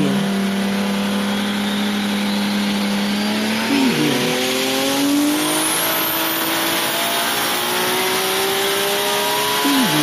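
Race-car engine sound accelerating through the gears: the pitch climbs steadily, drops sharply about four seconds in at a gear change, climbs again, and drops once more near the end.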